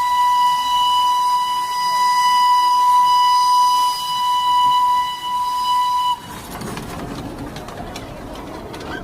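Steam locomotive whistle blowing one long steady note that cuts off suddenly about six seconds in, followed by the quieter running noise of the train with scattered clicks and knocks.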